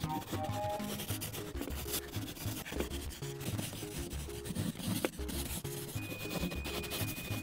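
Marker tip rubbing back and forth on paper in quick scribbling strokes, filling in a coloured background. Soft background music plays underneath.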